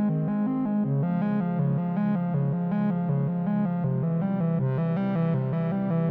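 Background music: a synthesizer-led electronic track with a steady, repeating bass line.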